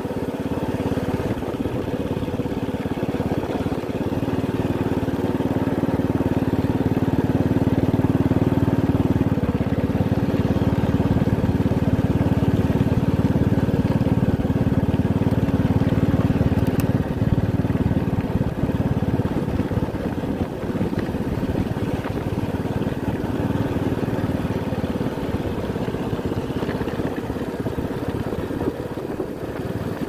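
Motorcycle engine running steadily while riding along at low speed, with a low rumble underneath; it grows a little louder for a stretch in the middle.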